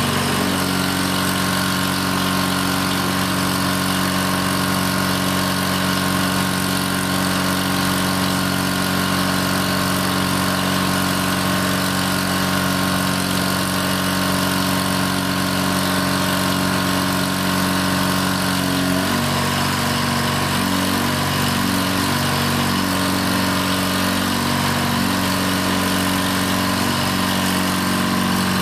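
Motor and hydraulic pump of a 1993 IMT 8600 lb crane running steadily with a whine while the crane boom is retracted, swung and lowered. About two-thirds of the way through, the pitch of the drone starts to waver up and down in steps.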